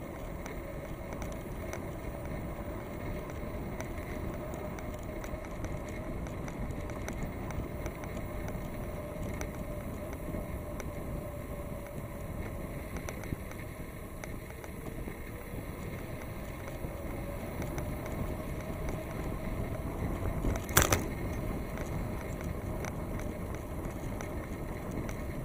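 Steady wind and rolling noise of a bicycle being ridden, with one sharp knock near the end.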